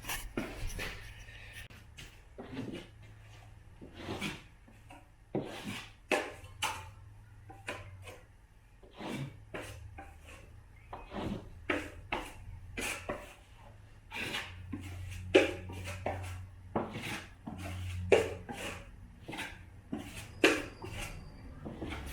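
A drywall taping knife scraping and spreading joint compound, with irregular sharp knocks of metal tools. A low steady hum runs underneath.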